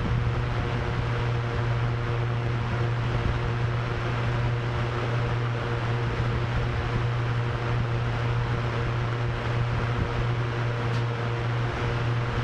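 Drone propellers giving a low, steady hum with a few fainter higher tones above it, mixed with a constant rush of wind.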